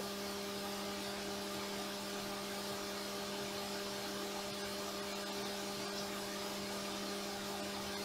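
CNC mill spindle running steadily while boring a titanium keycap under flood coolant: an even hum with a few constant tones over a hiss of spraying coolant.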